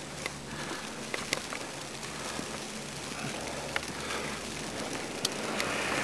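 Footsteps wading through deep fresh snow: soft crunching, with a few brief clicks scattered through it.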